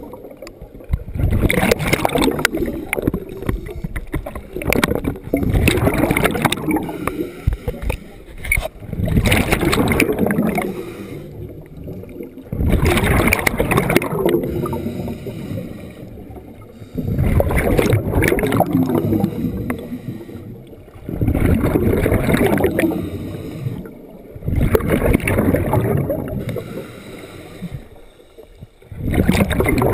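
A scuba diver's exhaled bubbles bursting out of the regulator, heard through a head-mounted GoPro's underwater housing: a loud bubbling rush about every four seconds, each lasting a second or two, with quieter stretches between the breaths.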